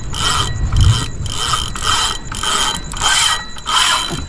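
Spinning reel's drag clicking and whirring as a hooked fish strips line. It goes in short surges, about two a second, each time the fish pulls against the drag.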